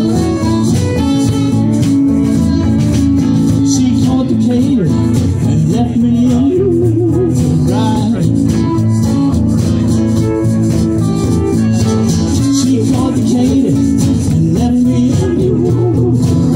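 Live acoustic band playing: guitars and upright bass over a steady rattling percussion beat, with a wavering melody line coming in around six seconds and again near the end.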